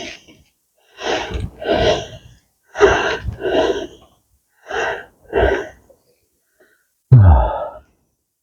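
A man breathing hard: four paired in-and-out breaths about two seconds apart, then a louder sighing out-breath whose pitch falls, about seven seconds in.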